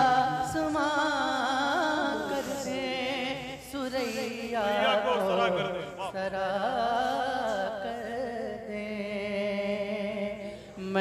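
A male voice singing a naat in long drawn-out phrases, the pitch wavering and gliding in ornamented runs over a steady lower drone, with short breaks between phrases.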